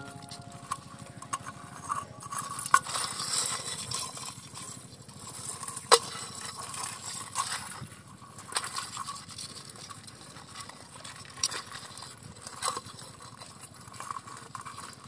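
Scratchy rustling in dry grass and wet mud around a crab burrow, broken by irregular sharp clicks, as a mud crab crawls out of the hole and a hand reaches in after it.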